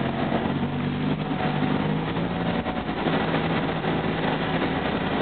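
Fiat 500's engine running steadily while the car drives along, heard from inside the cabin, with a brief dip in the engine note about halfway through.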